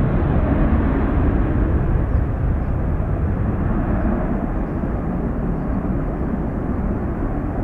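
Twin jet engines of an Airbus A320-family airliner at takeoff thrust: a steady roar as it rotates and lifts off the runway, easing slightly as it climbs away.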